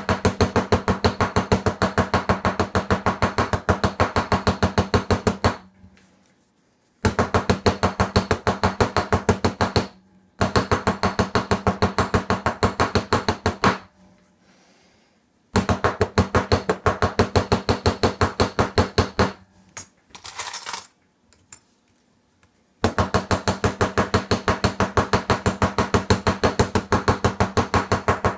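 A hammer striking a small metal-clay charm on a steel bench block in rapid, steady runs of blows, each run lasting a few seconds, with short pauses between runs.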